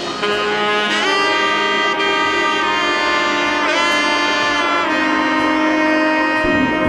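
Background music: a saxophone-like melody of long held notes with pitch bends over sustained chords.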